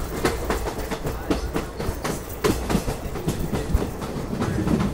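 Passenger train coach rolling along, its wheels clattering over the rail joints in irregular clicks and clunks over a steady low rumble, heard from the coach's open side.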